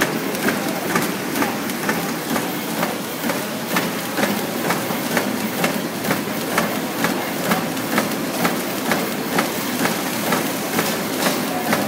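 Automatic soap wrapping machine running, a steady mechanical clatter with regular clacks at about three a second.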